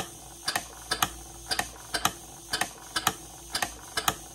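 Model horizontal mill steam engine running on compressed air, its snap-action poppet valve gear clicking sharply and evenly, about twice a second and often in quick pairs.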